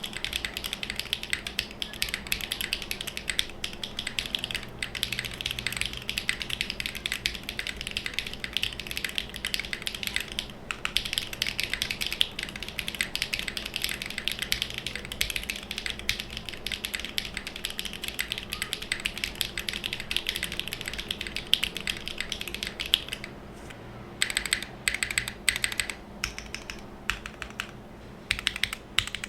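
Fast, continuous typing on a TKD Cycle7 mechanical keyboard with a full aluminium plate, gasket mounting, no foam, linear switches and KeyKoBo Retro Mixed Lights keycaps. Near the end the typing thins out to slower, separate keystrokes.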